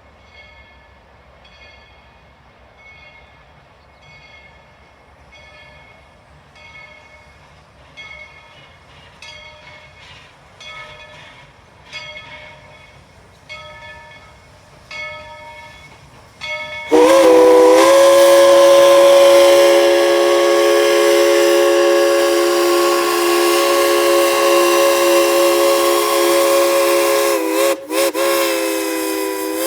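Faint ringing strikes of a locomotive bell, about one a second, then about 17 seconds in the steam whistle of Tweetsie Railroad No. 190, a 2-8-2 Mikado steam locomotive, sounds one long, loud blast of several notes at once, with a brief break just before it ends.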